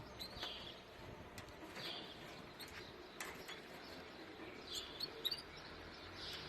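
Canaries chirping, faint: short high chirps repeated every second or two, with a few sharp clicks between them.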